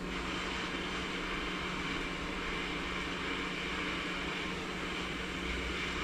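Hot-air rework gun of a Quick 861DW station blowing steadily onto the board to heat the solder: an even rushing hiss with a low hum under it.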